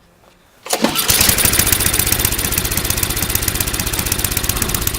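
Snowblower engine starting on a cold start, choked and primed: it catches suddenly under a second in and then runs steadily with an even, rapid firing beat.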